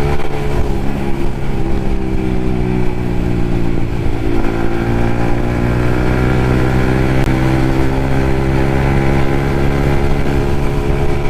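Yamaha MT-15's 155 cc single-cylinder engine running on the move through an aftermarket Akrapovic exhaust. The engine note sags about four seconds in, then climbs slowly.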